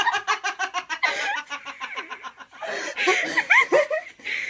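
People laughing hard: a fast run of ha-ha pulses at the start, then high squealing laughs rising and falling near the end.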